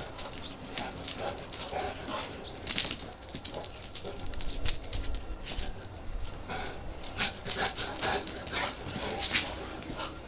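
Two Saint Bernards, an adult and a puppy, playing rough on stone paving: rapid, irregular clicking and scuffling of their claws and paws as they scramble about.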